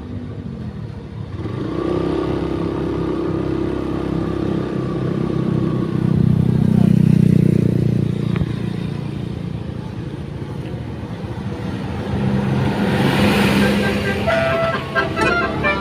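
Buses driving past with their engines running, loudest about six to eight seconds in as one goes by. Near the end a horn with several tones at once starts sounding.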